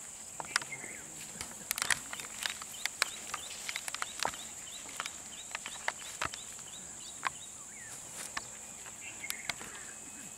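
Irregular snapping and rustling of twigs, dry grass and brush as a wild Asian elephant moves and feeds in scrub. The snaps are thickest a couple of seconds in and thin out later.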